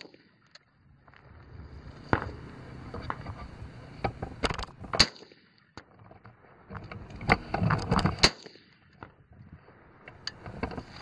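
AR-15 rifle firing single shots at an irregular pace, about seven in all, with several coming close together a little under halfway through and again near eight seconds in.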